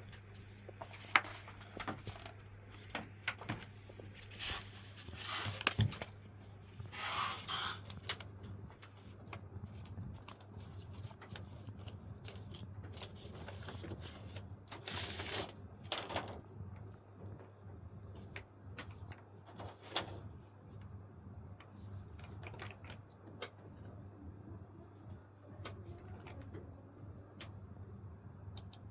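Keys being pressed on a Lofree FLOW 2 mechanical keyboard with Pulse switches: scattered, irregular clicks, with a few longer rustling noises, over a low steady hum.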